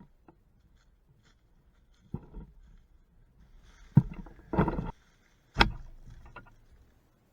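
A few irregular knocks and short scrapes, the loudest about four seconds in and again about a second and a half later.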